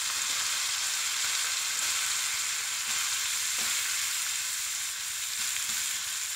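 Freshly added spiced yogurt sizzling steadily in hot ghee with fried green chillies and curry leaves in a nonstick frying pan, as it is stirred with a wooden spatula.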